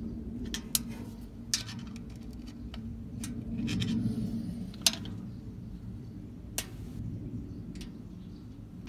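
A scattering of sharp, irregular metallic clicks and taps as small valvetrain parts are handled on a small-block Chevy cylinder head, over a low steady rumble.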